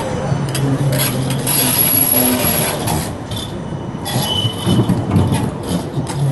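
Rail vehicle's steel wheels squealing on the rails, with a thin high screech about a second and a half in, a lower squeal a little later, and repeated clacking knocks.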